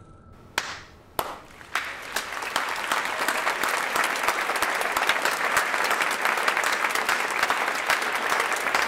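Three separate hand claps in the first two seconds, then applause builds quickly and keeps going.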